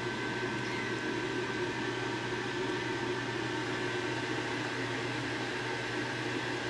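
Steady mechanical hum of a running appliance, even and unchanging, with a faint high steady tone over it.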